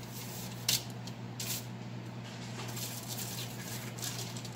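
Kitchen tongs flipping raw fish fillets on aluminium foil: a sharp click of the tongs under a second in, then several soft rustles of the foil as the fillets are lifted and laid down.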